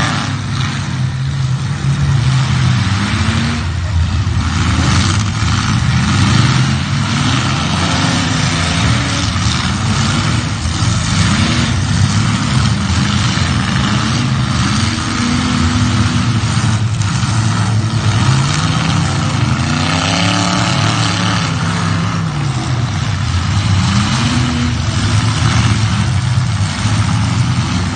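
Engines of several demolition derby cars revving up and down at once, their pitches rising and falling over one another without a break.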